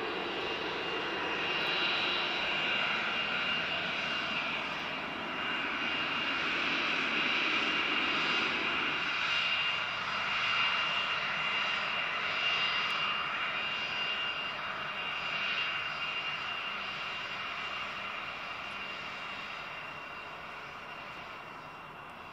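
Business jet's turbofan engines at taxi power: a steady high whine with a thin tone running through it. A lower rumble drops away about nine seconds in, and the whine fades gradually over the last several seconds.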